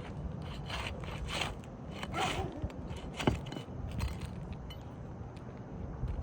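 Old asphalt roof shingles being pried up, scraping and crackling as their tar seal strips let go, with one sharp snap about three seconds in. The shingles are so aged that the tar strips barely stick any more.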